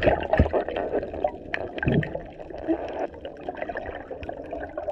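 Water gurgling and bubbling around a camera held underwater, with many small clicks and a few low knocks as the spearfisher moves and handles the spear.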